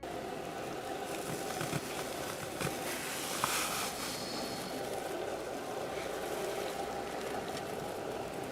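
Steady outdoor background noise, an even rumble and hiss with no clear events, and one brief thin tone about three and a half seconds in.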